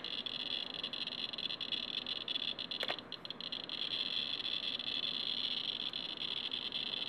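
Inspector EXP Geiger counter clicking so fast that its chirps run together into a steady, high, crackling buzz as its pancake probe reads a uranium ore sample at several thousand counts per minute. One louder click comes about three seconds in.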